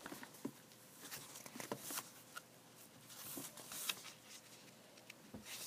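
Faint rustling and light taps from handling a paper picture book and turning its pages, in scattered short bits with quiet gaps between them.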